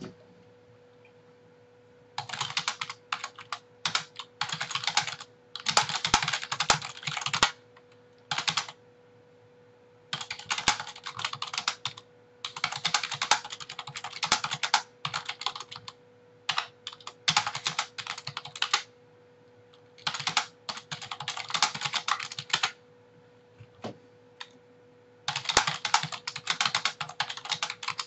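Typing on a computer keyboard in bursts of a few seconds, with short pauses between them. A steady electrical hum runs underneath.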